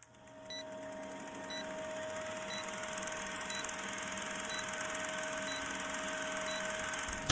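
Old-film countdown leader sound effect: a film projector running with a steady whir, fast clatter and crackle, and a faint steady hum, with a short high beep once a second as the numbers count down.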